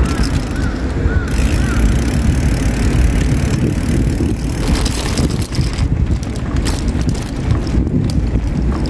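Riding noise on a bicycle: a steady low rumble of wind on the microphone together with tyre and road noise, with scattered small clicks and rattles.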